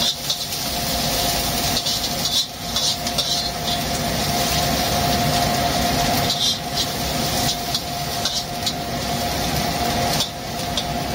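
Kitchen cooker hood fan running, noisy, with a steady hum, over aromatics sizzling as they fry in the pan. The sizzling hiss dips briefly a few times.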